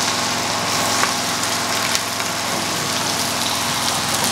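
Rice frying in hot oil in a frying pan, sizzling steadily as diced carrots and green pepper are tipped in and stirred with a wooden spatula, with a couple of light taps.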